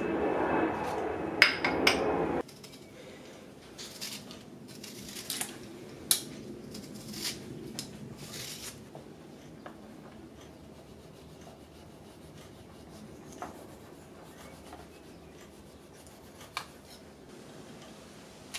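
A knife scraping and slicing the pith off citrus peel on a wooden chopping board, with scattered light clicks and knocks, busiest in the first half. It opens with a loud steady rushing noise that cuts off suddenly about two seconds in.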